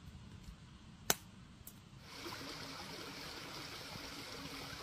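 A single sharp snap about a second in, then from about two seconds the steady babble of a flowing stream.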